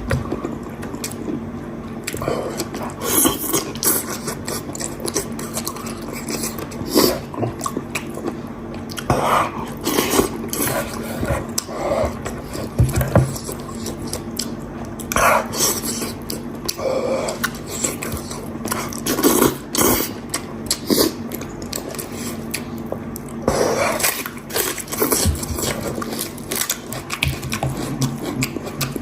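Eating sounds: utensils clinking and scraping against a bowl, with bites and chewing, in irregular short clicks and knocks.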